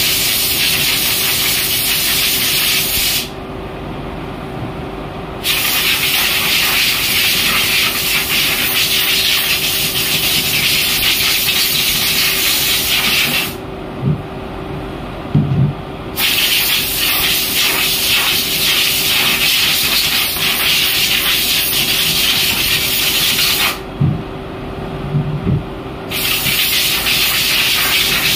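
Industrial stainless-steel bin washing machine running: water jets spraying inside it with a loud, steady hiss over a constant pump hum. The spray cuts out three times, roughly every ten seconds, for about two seconds each, with a couple of low knocks during each pause.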